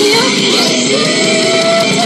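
Pop-rock music with a woman singing into a microphone, holding one long note in the middle.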